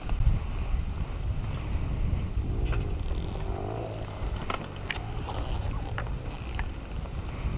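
Dirt bike engine running at low revs with wind on the microphone, and a few sharp knocks and rattles from the bike on the trail.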